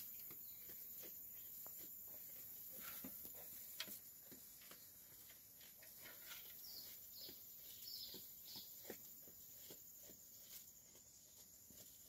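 Faint, irregular rustling and crunching of a Dorper ewe pulling forage from a hanging slow-feed hay rack and chewing it. A few faint bird chirps come about halfway through.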